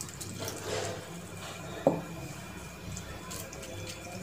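Water poured from a steel tumbler splashes onto flattened rice (poha) in a steel bowl, with one sharp metallic clink about two seconds in. Then a hand squishes and stirs the wet poha, washing it.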